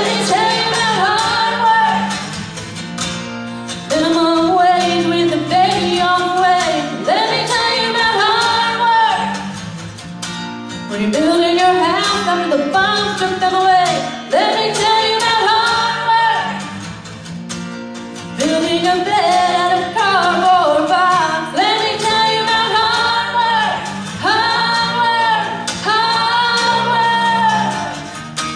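A young woman singing into a handheld microphone, phrase after phrase with short breaks, over instrumental accompaniment with guitar.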